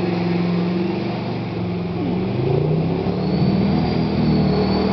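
Jeep's AMC 360 V8 engine running under load, holding steady and then revving up and getting louder about halfway through.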